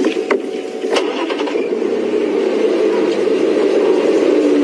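Safari game-drive vehicle's engine starting up, then running and growing louder from about a second in as the vehicle pulls forward.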